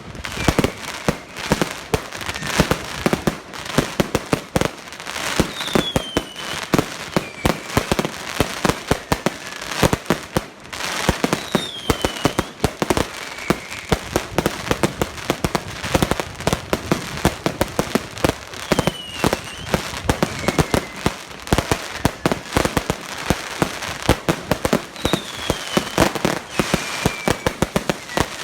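Fireworks going off in a continuous rapid crackle of bangs, several a second, with a short falling whistle about every six or seven seconds.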